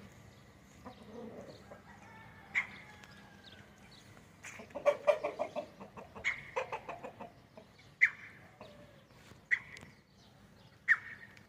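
Gamecock roosters clucking: a quick string of clucks about halfway through, then several single sharp calls spread out over the rest.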